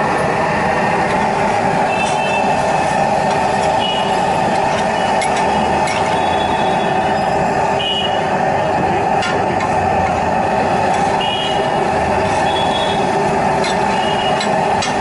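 Steady din of street traffic, with a few sharp clicks of a metal spatula on a flat griddle and short high tones now and then.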